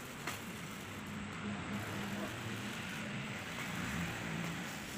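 Stick arc welding on a steel gate pipe: the electrode arc sizzling steadily, with a low hum underneath.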